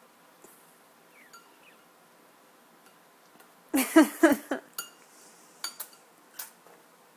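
A sun conure splashing and flapping in a ceramic bowl of water: one short, loud flurry of splashing about four seconds in, followed by a few light clinks and drips against the bowl.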